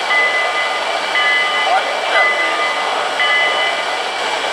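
O-gauge model steam locomotive standing still, giving a steady hissing whoosh with high tones that come and go about once a second, with faint voices in the background.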